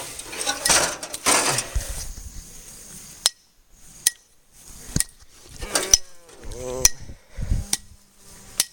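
Sharp metal strikes, about one a second, on the magnet of a gutted Panasonic microwave as it is smashed apart, each hit ringing briefly. Before the strikes there is a few seconds of scraping and rattling of metal.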